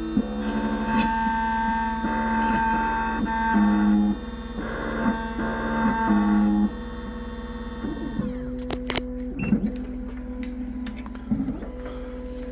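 Triton computerized key-cutting machine running a cut. Its motors sound in steady tones that step between pitches every half second or so as the key carriage moves. After about eight seconds this settles into a steadier hum with a few sharp clicks.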